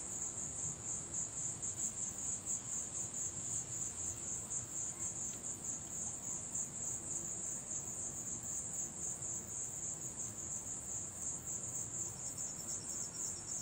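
Insects chirping in a continuous, high-pitched, fast-pulsing chorus, with a second, fainter trill joining near the end.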